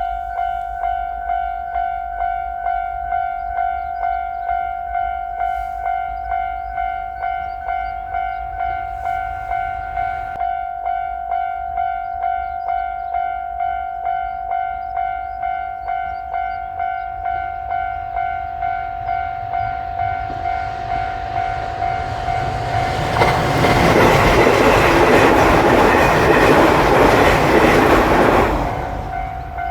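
Japanese level-crossing warning bell ringing steadily, a clanging electronic tone repeating about twice a second. About two-thirds of the way through, a JR Shikoku 8600 series electric limited-express train approaches and passes loudly for about five seconds, its wheel and rail noise drowning the bell. Near the end the bell is heard ringing alone again.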